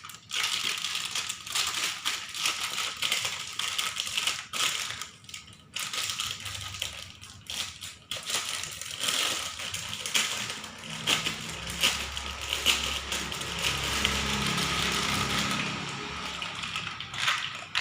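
Crinkling plastic packaging and rattling plastic sand molds as a kinetic sand mold set is unwrapped by hand, with continuous irregular crackles.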